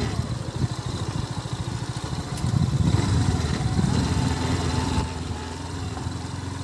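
Small vehicle engine running at low speed with a rapid low pulsing, somewhat louder in the middle and easing off about five seconds in.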